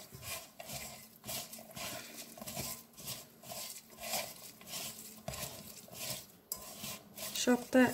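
A bare hand mixing sliced raw onions with spice powders and ginger-garlic paste in a metal pot. The onions rub and scrape against the pot in short repeated strokes, about two to three a second.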